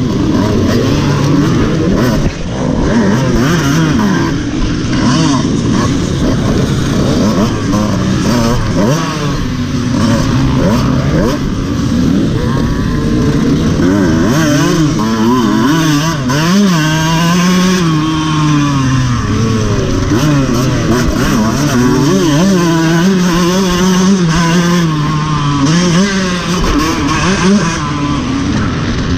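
Dirt bike engine ridden hard, heard from on the bike: revving up and dropping back over and over as the throttle opens and closes, the pitch climbing and falling in repeated swells.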